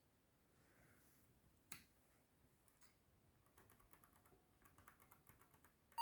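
Faint clicks of laptop keys being pressed: a single tap, then a run of light taps, and a sharper click at the very end.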